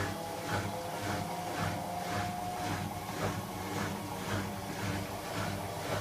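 Hoover WDYN 11746 PG8 washer-dryer's empty drum spinning on its inverter motor: a rhythmic swishing about twice a second over a steady low hum and a faint whine.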